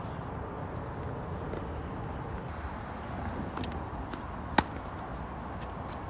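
A tennis racket strikes the ball once, sharp and loud, about four and a half seconds in, the near player's forehand return of serve. Fainter distant clicks of the ball being struck and bouncing come before it, over a steady low background rumble.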